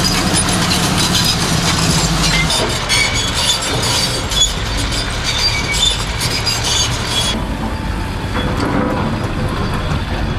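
Bulldozer's diesel engine running under a dense clatter of its steel tracks clanking. The sound changes abruptly about seven seconds in, and the high clatter thins out.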